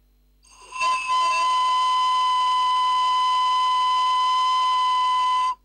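Breathy whistle from blowing across the open end of an empty pen tube: a single steady note with breath hiss, held for about four and a half seconds and cut off sharply. The tube holds no water, so its whole air column vibrates.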